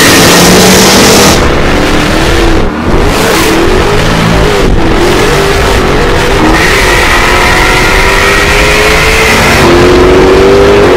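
Jaguar Project 7 concept's supercharged V8 driven hard, the engine note climbing with the revs and dropping back at quick upshifts about five seconds in and near the end, with a brief lift in the level about three seconds in.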